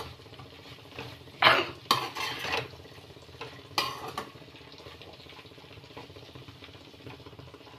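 A metal spatula scraping and knocking against a metal kadhai as chunks of potato and sem beans are stirred. There are a few loud strokes in the first half, the loudest about a second and a half in, and the stirring goes quieter after the middle.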